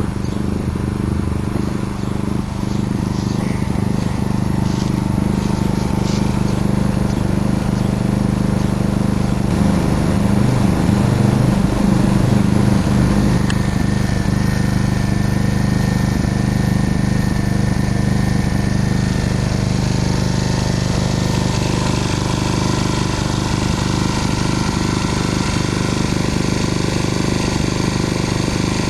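Yamaha EF1000IS inverter generator's small 50 cc four-stroke engine running steadily, an even low hum. Its pitch shifts slightly about twenty seconds in.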